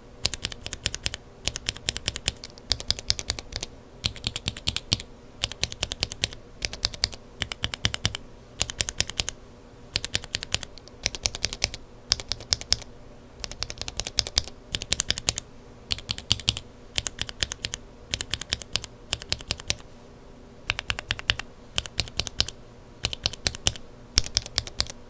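Typing on mechanical keyboard switches with linear Kailh Burgundy stems lubed with 205g0, the keys clacking in quick runs of strokes separated by short pauses.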